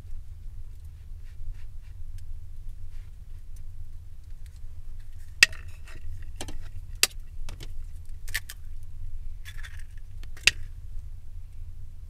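Cooking utensils and cookware being handled: about seven sharp clinks and knocks, some ringing briefly, starting about halfway through, over a steady low rumble.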